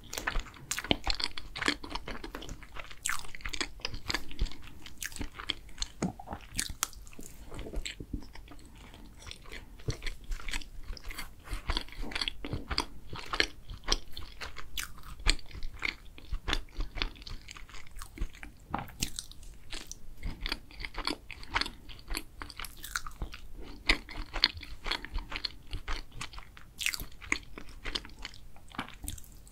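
Close-miked chewing of moist chocolate layer cake: a dense run of wet mouth clicks and smacks as forkfuls are bitten and chewed.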